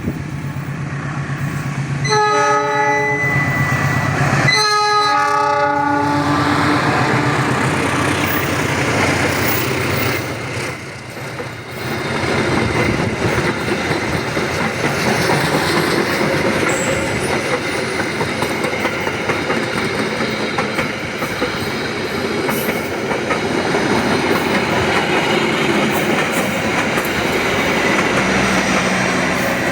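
KAI CC 206 diesel-electric locomotive's horn sounding two blasts about two seconds each, a tinny multi-note chord, followed by the loud steady rumble and wheel clatter of the train running past.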